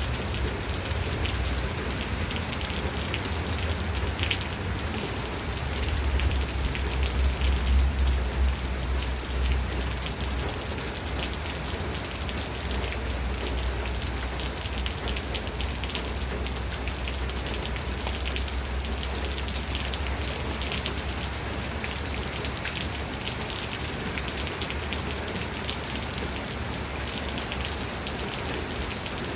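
Steady rain falling on a surface, a dense patter of many drops. A low rumble underneath swells for a few seconds about six seconds in.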